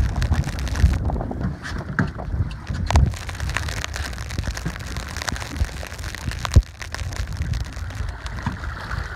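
Wind buffeting the microphone in a low, steady rumble, with a few sharp knocks; the loudest knock comes about six and a half seconds in.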